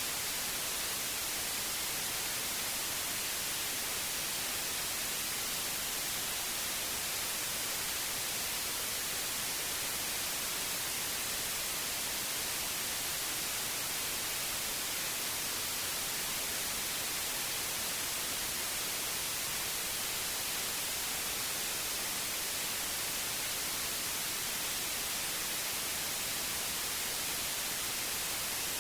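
Steady, unchanging white noise: an even hiss strongest in the high frequencies, with no tones or events.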